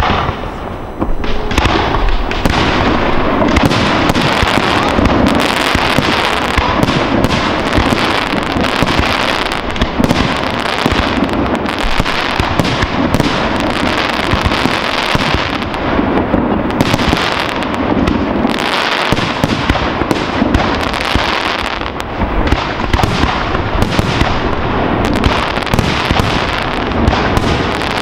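Fireworks display: a fast, dense barrage of aerial shells bursting one on top of another with no pause, getting much louder about a second in.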